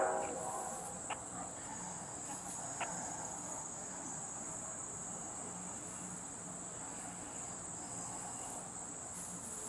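Steady high-pitched insect chorus, with a faint click about a second in and another near three seconds.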